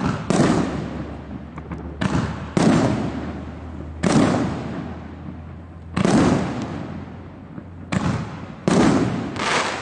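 A 2-inch, 49-shot firework cake firing its shells in turn: about eight sharp bangs from shells lifting and bursting, each dying away over a second or so, spaced roughly one to two seconds apart.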